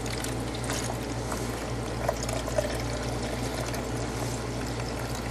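About two cups of water being poured steadily into the water reservoir of a small evaporative personal air cooler, filling the tank.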